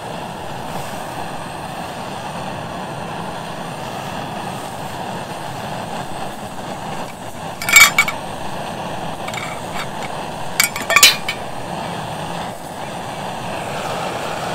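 LPG camping gas burner running, a steady rushing hiss, with sharp metal clinks against a titanium cooking pot about halfway through and a quick run of about three more a few seconds later.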